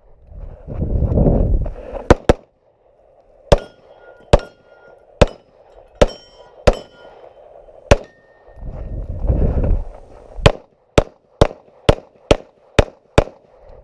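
Pistol shots fired at steel targets: two quick shots, then single shots about a second apart with steel plates ringing after some hits, then a steady string of seven shots about half a second apart near the end. Two stretches of low rumbling noise on the microphone come between the shots.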